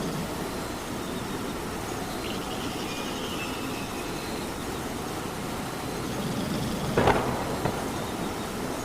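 Steady rain falling, with a sharp knock about seven seconds in and a fainter one just after.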